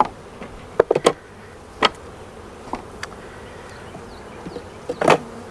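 Honeybees buzzing steadily around an open hive, with several sharp knocks and clicks, the loudest cluster about a second in and another about five seconds in.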